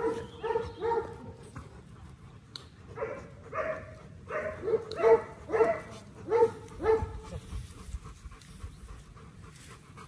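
Doberman crying out in short yelps, each dropping slightly in pitch, about two a second, while locked in a mating tie. There are a few yelps at the start and a longer run in the middle, and the cries stop about seven seconds in.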